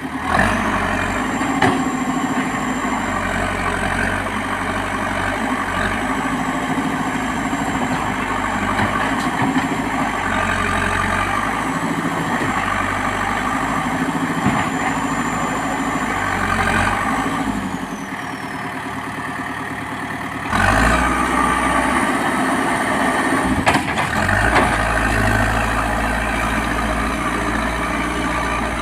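Heavy diesel engine of construction machinery running steadily, with a faint high whine above it. The sound drops quieter for a couple of seconds past the middle, then comes back abruptly louder.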